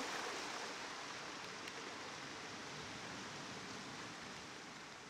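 Faint steady hiss, slowly fading.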